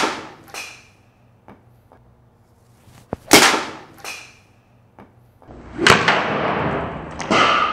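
Swishes of a 3D-printed resin golf driver swung hard through the air: three in all, about three seconds apart, each starting with a sharp tick, the last a longer rush. Near the end comes a sharp hit with a short ringing.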